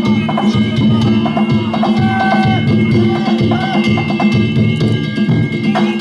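Danjiri festival music: a taiko drum beating about twice a second, small brass hand gongs ringing steadily over it, and voices calling.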